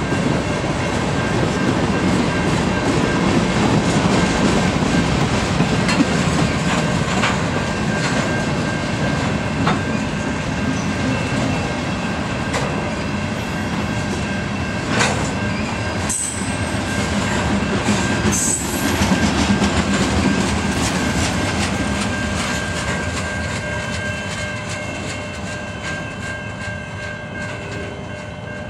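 Freight cars rolling past on the rails: a steady rumble with wheels clattering over the track, and a few sharper knocks around the middle. The sound slowly fades over the last several seconds.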